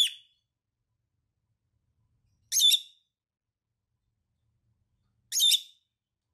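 A small parrot giving three short, sharp, high-pitched chirps, spaced about two and a half seconds apart.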